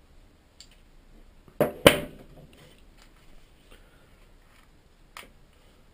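Side cutters snipping off used copper desoldering wick: two sharp clicks about a third of a second apart, a little under two seconds in, with a few faint taps from tool handling.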